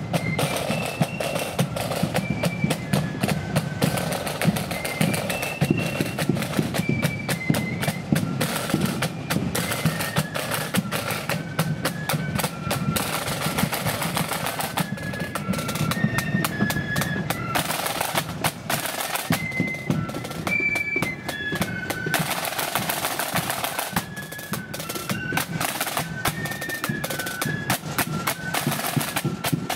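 Marching flute band playing a tune: flutes carry a stepping melody over rapid snare drum rolls and bass drum beats.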